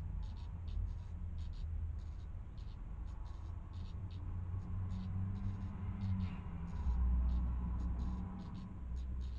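Redstart nestlings shifting in the nest, making short high scratching ticks a few times a second over a steady low rumble.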